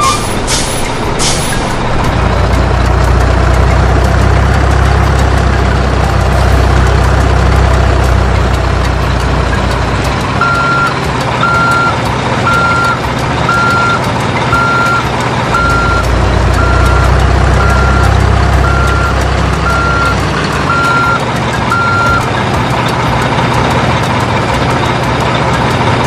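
Heavy truck sound: a low, steady diesel engine rumble, with a truck's reversing alarm beeping at one pitch about once a second through the middle stretch.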